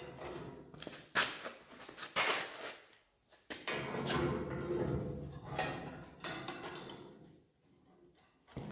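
Handling noise of a small metal protractor and rule being set against steel frame tubing: a few sharp clicks and knocks, then a longer stretch of scraping and rustling.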